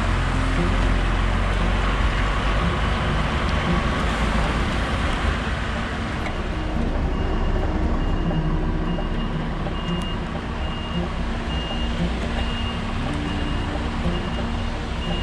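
DAF XF truck's diesel engine running as the lorry manoeuvres slowly. About seven seconds in, a reversing beeper starts, sounding regular high beeps a little faster than one a second.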